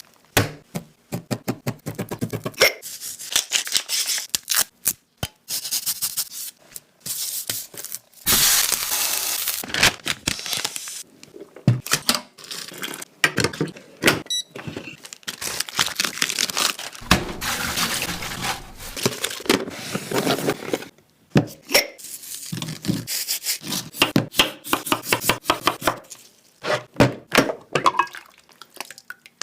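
Close-miked eating sounds of a person chewing and slurping noodles: many quick, sharp mouth smacks and crunches, with a few longer, noisier stretches and short pauses between bites.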